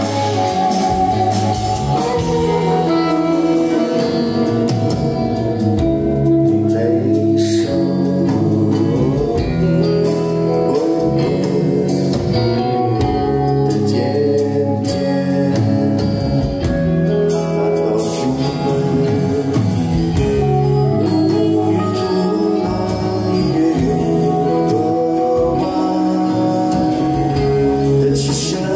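Live rock band playing: sung vocals over electric guitars, bass and drums, continuous and loud throughout.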